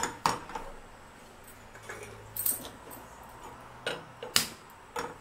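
Metal cookware clanking on a gas stove's steel grate as a non-stick kadai is shifted and a small tempering ladle is set down on a burner. About six separate sharp knocks and clinks, the loudest right at the start and about four and a half seconds in.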